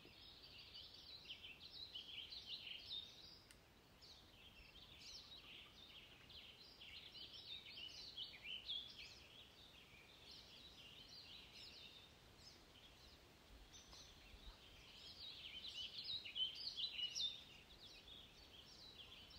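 A faint, busy chorus of many small birds chirping and twittering, swelling a little near the end.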